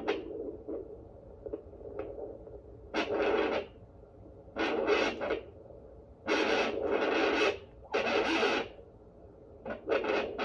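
Pocket fetal Doppler (Premom SweetieSong) turned up to full volume, its speaker giving irregular bursts of rough scraping noise, each about a second long, as the gel-covered probe is moved over the lower belly. It is still searching and has not yet picked up the baby's heartbeat.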